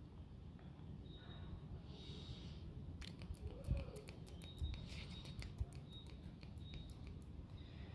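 Faint crackling and rustling of a hand stroking a cat's fur close to the microphone, a run of quick clicks from about three seconds in until near the end, over a low outdoor rumble.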